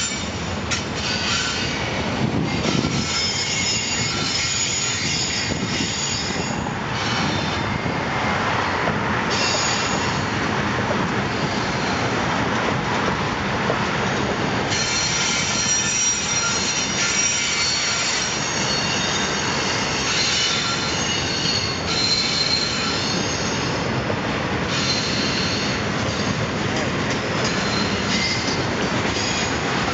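Double-stack intermodal container train rolling past on well cars, with a steady loud rolling noise. Its wheels squeal in high-pitched tones that come and go throughout.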